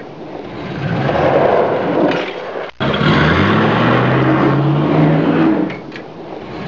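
Motor vehicle engine accelerating, its pitch rising under loud rushing noise, heard in two stretches with an abrupt cut a little under three seconds in.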